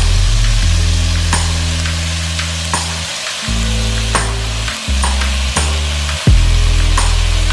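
Ground turkey sizzling steadily as it fries in a nonstick wok. Under it runs background music with low sustained notes that change every second or two, and a few sharp clicks sound now and then.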